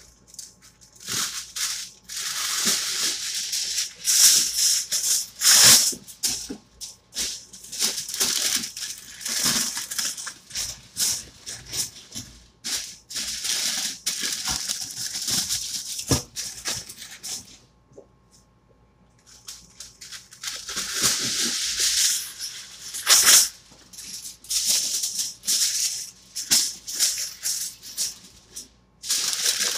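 Aluminium foil being pulled off the roll, crumpled and pressed around the rim of a stainless steel steamer pot: crisp crinkling and crackling in bursts. It stops for a couple of seconds a little past halfway, then goes on.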